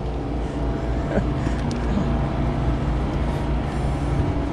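Boat motor running steadily: a continuous low hum with a few faint steady tones above it.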